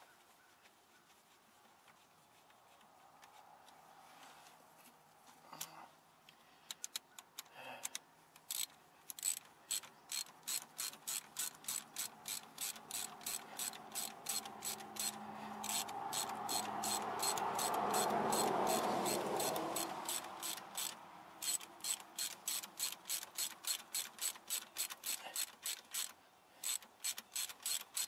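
Hand ratchet wrench clicking steadily, a few clicks a second, as a starter mounting bolt is run in. A rushing swell of noise rises and fades through the middle.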